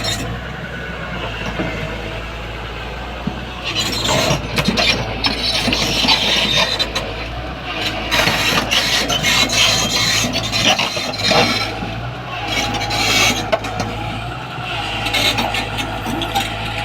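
Komatsu PC240 excavator's diesel engine running steadily. From about four seconds in it is joined by irregular scraping, rasping and squealing.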